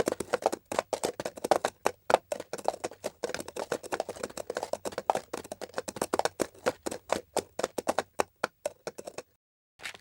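Rapid, irregular footsteps, several a second, which stop a little before the end.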